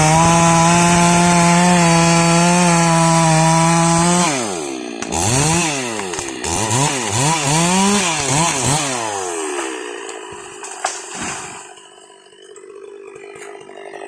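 Stihl MS 382 two-stroke chainsaw running steadily at full throttle, then about four seconds in the throttle is let off and blipped several times, the revs falling and rising, before the saw drops to a much quieter low run near the end.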